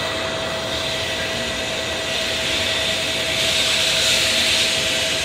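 Tokaido Shinkansen train pulling into the platform: a rush of air and running noise that swells to its loudest about four seconds in. Under it the platform's electronic arrival bell rings with a steady tone that cuts off at the end.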